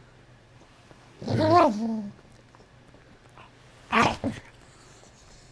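A dog growling over a chew treat it is guarding: one wavering growl about a second long, then a short sharp snarl about four seconds in, as a hand reaches toward the treat, with a smaller one just after.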